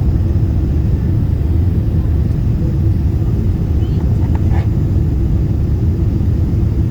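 Steady low rumble of airliner cabin noise, the jet engines and airflow heard from inside the cabin during the approach and landing.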